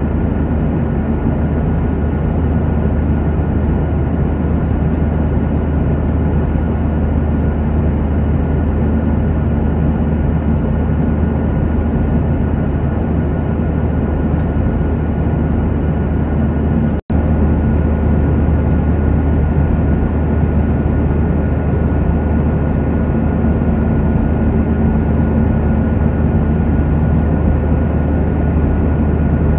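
Steady cabin noise of an airliner in cruise: a constant deep rumble of engines and rushing air with a faint steady whine above it. The sound drops out for a split second about 17 seconds in.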